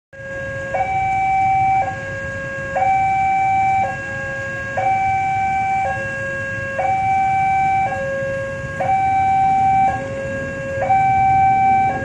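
Railway level-crossing warning siren sounding a steady two-tone hi-lo wail, about one second on each tone, over a low traffic rumble.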